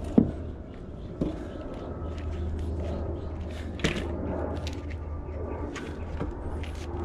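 Knocks and light clicks of a bicycle wheel and tubeless tire being handled: a sharp knock right at the start, another about a second in and one near four seconds, with scattered small clicks over a steady low hum.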